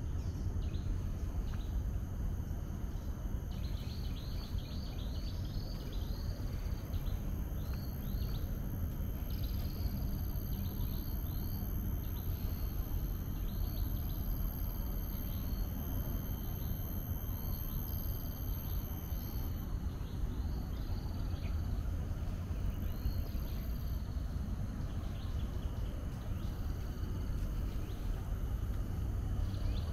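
Birds chirping in quick runs of short downward notes, thickest in the first half, over a steady low outdoor rumble.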